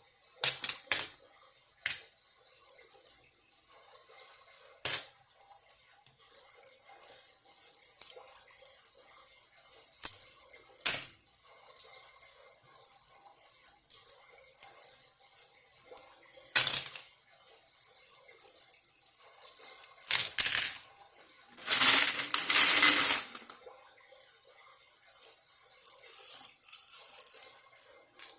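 Coins clicking and clinking as loose change from a piggy bank is sorted and counted by hand, in many separate small clicks. About three-quarters of the way through comes a longer, louder rattle of coins lasting a second or two.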